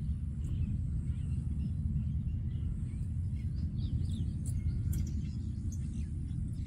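Outdoor ambience: birds chirping over a steady low rumble. The chirps come more often from about three seconds in.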